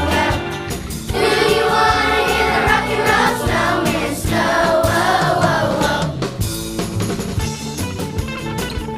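Children's choir singing a Christmas carol over instrumental accompaniment with drums. The voices drop out about six seconds in, leaving the accompaniment with a steady drum beat.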